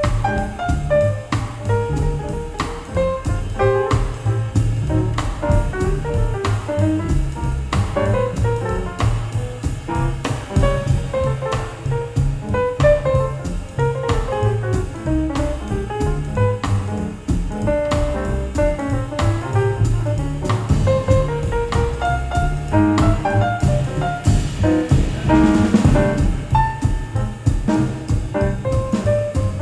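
Jazz music playing: piano runs over double bass and drum kit.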